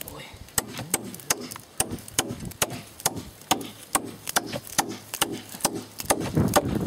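Steady, evenly spaced blows of a hand tool striking wood, about two and a half a second.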